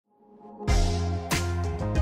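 Intro music that swells up from silence, then comes in fully with a beat less than a second in.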